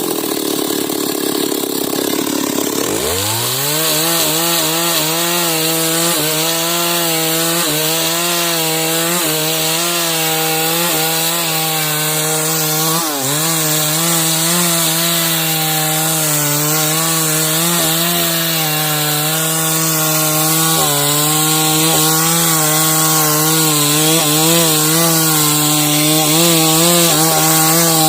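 Two-stroke chainsaw cutting wood lengthwise into beams. It drops off throttle at the start, revs back up about three seconds in, then runs at full throttle with its pitch wavering under the load of the cut.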